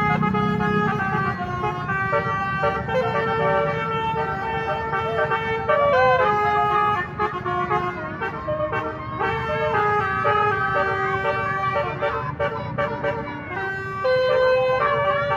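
Bus telolet horn with twelve roof-mounted trumpets playing a melody: several steady notes sound together as chords and change step by step, with a few short sliding notes, over a low rumble.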